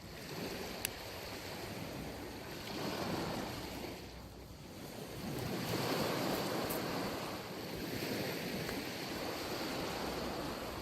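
Small sea waves breaking and washing up a sandy beach, swelling twice, about three seconds in and again around the middle. A brief sharp click sounds about a second in.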